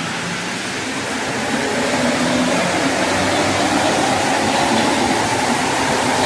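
Rubber-tyred metro train pulling out of an underground station: its motors whine higher and the running noise grows louder as it gathers speed.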